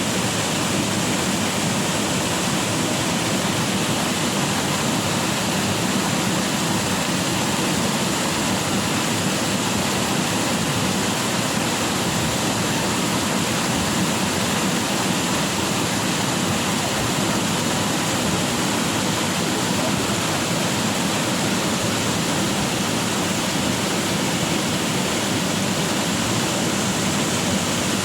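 Urlătoarea waterfall's falling water: a steady, loud, unbroken rush.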